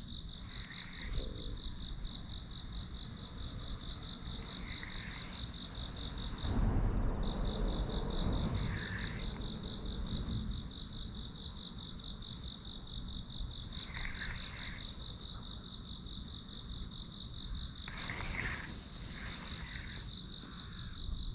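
An insect trilling steadily at a high pitch in a fast, even pulse, breaking off for about a second some six seconds in. Shorter calls come in every few seconds, and a low rumble rises for a few seconds in the middle.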